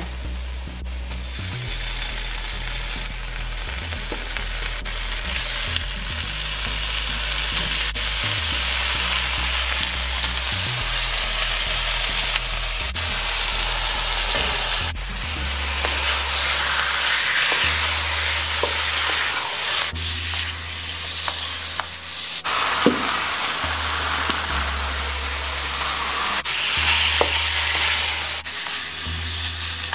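Raw chicken pieces sizzling as they fry in a nonstick wok in hot oil with a ground curry seasoning paste. A spatula stirs them, scraping and clicking on the pan now and then. The sizzle grows louder partway through as the chicken goes in and heats.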